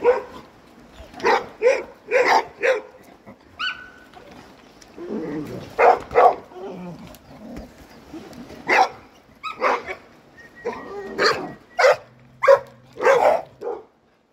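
Dog barking repeatedly: short, sharp barks in runs of two to four, with pauses between the runs.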